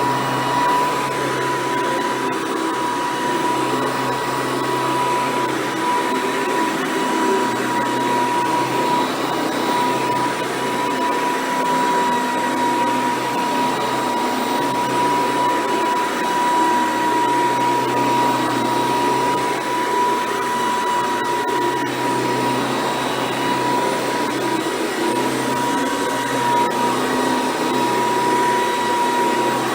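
Hoover Decade 800 upright vacuum cleaner running while being pushed over carpet: a steady high motor whine over the rush of air, the lower part of the sound swelling and fading every few seconds.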